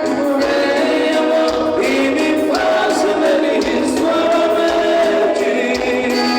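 A song with singing voices over instrumental backing and a recurring low beat.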